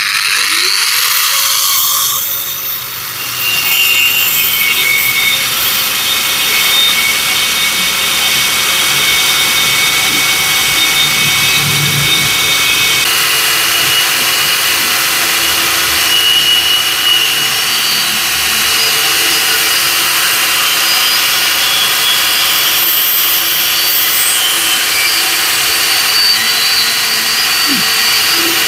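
Caowang CW1336 wall chaser, an 1800 W, 7500 rpm machine fitted with a 125 mm abrasive steel-cutting disc, spinning up and then cutting steel. The disc grinds steadily and loudly through the metal with a dense high hiss.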